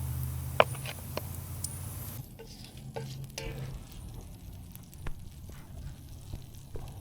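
Olive oil and butter sizzling in a pan over a wood fire, with scattered sharp clicks, the loudest about half a second in, and a low hum that stops about two seconds in.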